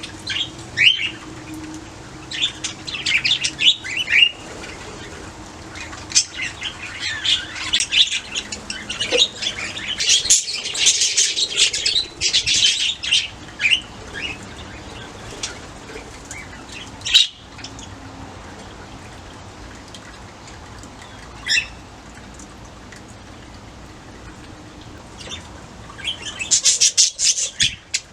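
Budgerigars chirping and warbling in quick bursts. The busiest chatter comes in the middle and again near the end, with only scattered single chirps between.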